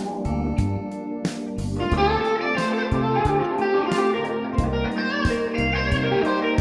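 Electric guitar playing over bass notes and a drum beat, in a blues-rock style.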